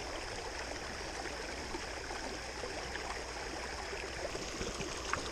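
Creek water running steadily over a small rocky waterfall.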